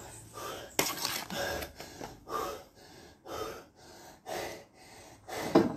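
A man breathing hard through a training mask during a floor exercise, in quick noisy puffs about two a second.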